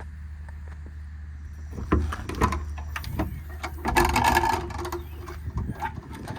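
Metal clicks and knocks of a truck service-body compartment latch and door being opened, with a louder rattling scrape about four seconds in, over a steady low hum.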